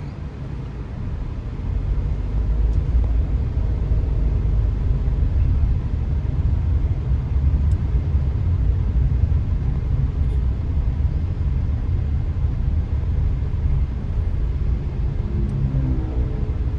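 Low, steady rumble of a car's engine and road noise heard from inside the cabin while driving, growing louder about two seconds in.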